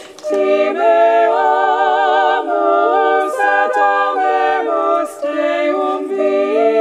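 Unaccompanied voices singing a hymn in harmony, notes held with vibrato, with short breaths between phrases.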